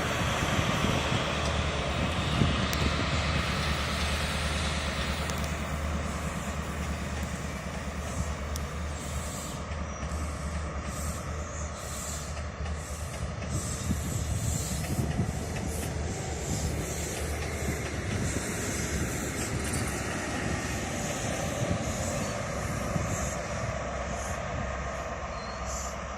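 A train running through a station: a steady rumble of wheels and engine that eases slightly towards the end.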